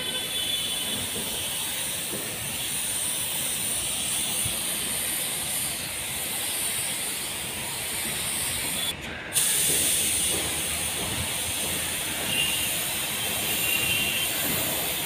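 Compressed-air spray gun with a gravity-feed paint cup spraying paint in a steady hiss. The hiss stops briefly about nine seconds in, then starts again.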